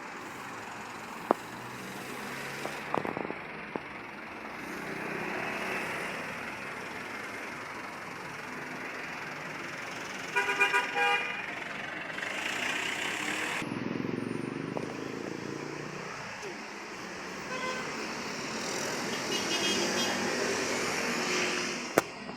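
Road traffic going by, with a tour bus sounding its telolet musical horn in a quick run of short toots about ten seconds in. Fainter toots from the horn follow near the end.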